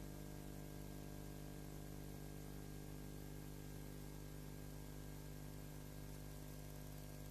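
Steady electrical hum with many low overtones under an even hiss, unchanging throughout, with no other sound: a blank soundtrack.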